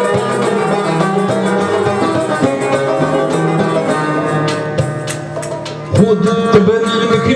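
Live instrumental passage on a plucked, fretted round-backed lute (mandole) with hand percussion keeping a steady beat. The music dips about five seconds in, then the ensemble comes back in louder about six seconds in.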